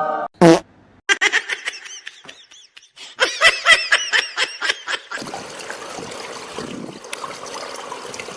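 High-pitched laughing in quick repeated bursts, followed by a steady hiss.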